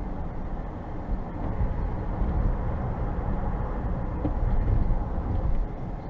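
Steady low rumble of a car driving at highway speed, heard from inside the cabin: tyre, road and engine noise with no distinct events.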